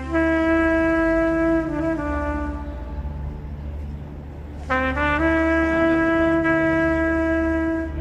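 Background music: a reed or wind instrument playing long held notes, with a pause near the middle before another long note, over a steady low drone.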